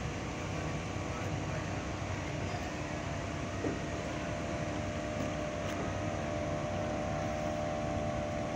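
A small wooden motorboat's engine droning steadily, a constant pitched hum over an even rushing noise.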